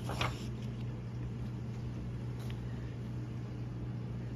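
A workbook page being turned, a brief paper rustle in the first half-second, then a faint click about two and a half seconds in, over a steady low hum.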